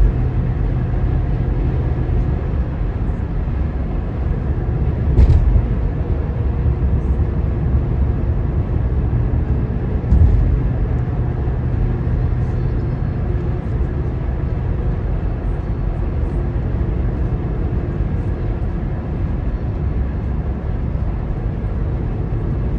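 Steady road and engine noise of a car driving along a highway, heard from the car, with a few short dull thumps about five seconds apart early on.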